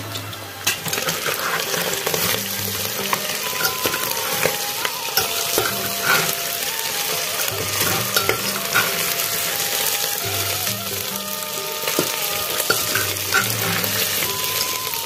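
Chicken pieces sizzling as they fry in a pressure-cooker pot, stirred with a metal spatula that scrapes and clicks against the pot. Faint background music runs underneath.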